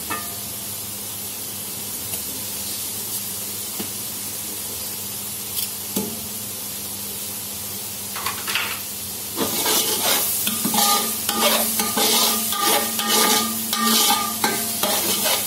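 Onion and ginger-garlic paste frying in oil and ghee in a pan, with a steady sizzle. About nine and a half seconds in, a spatula starts stirring and scraping against the pan, and the sound becomes louder and uneven.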